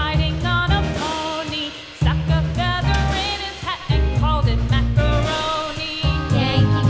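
Background music: a melody over a strong bass line.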